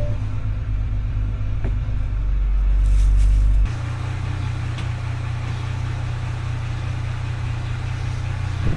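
Porsche Macan S's twin-turbo V6 engine running at idle with a steady low rumble. About a third of the way in, the deepest part of the rumble cuts off suddenly and a steadier hum carries on. The engine has an odd noise that the mechanic puts down to a connecting rod (big-end knock).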